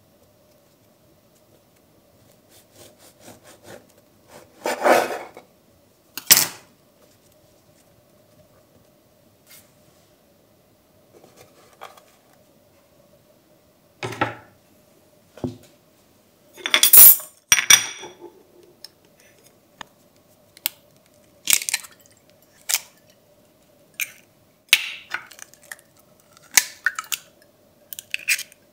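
Kitchen utensils and dishes clinking and knocking during food preparation: scattered separate taps and clatters, with the loudest cluster a little past halfway, over a faint steady hum.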